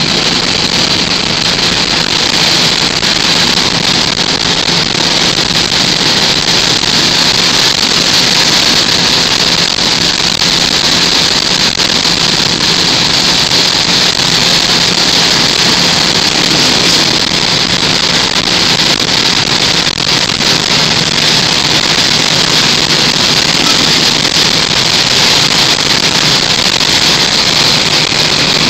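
Steady wind and road noise of a car cruising at highway speed, heard from inside the car, with a low, even engine drone underneath.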